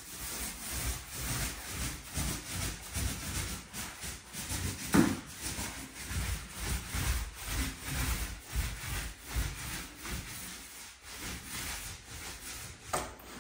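Paint roller rolled over a wall in repeated back-and-forth strokes, a rhythmic rubbing, with one brief louder sound about five seconds in.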